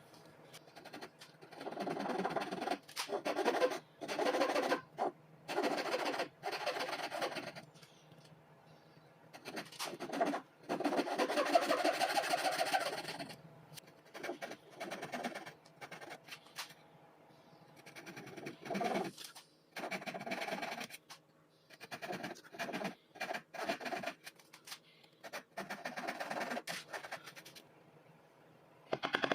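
Hand tool working wood in a run of scratchy strokes, each about a second long, in uneven groups with short pauses between them.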